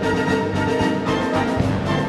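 Orchestral music with full, sustained chords, played loud.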